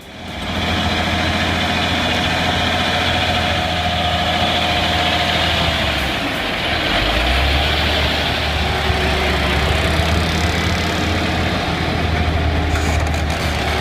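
Heavy truck's diesel engine running steadily, its low note changing about seven seconds in.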